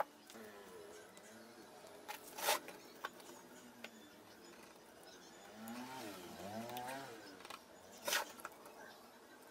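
Sharp clicks and knocks of a wooden marking gauge and a metal pen being handled and set down on a wooden board: two loud ones, about two and a half seconds in and near the end, and a few lighter taps. Between them a faint, wavering pitched call dips and rises in the background for about a second and a half.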